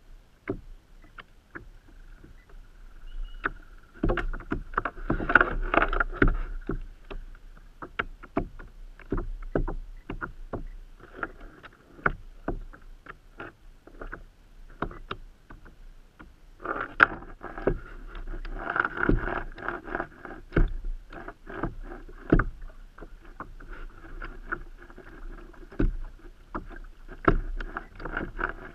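Irregular knocks and taps on a kayak hull, with two louder stretches of rapid knocking, one about four seconds in and one about seventeen seconds in.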